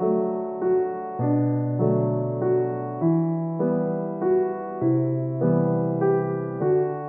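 Background music: a gentle piano melody, with notes changing about twice a second in a steady, repeating pattern.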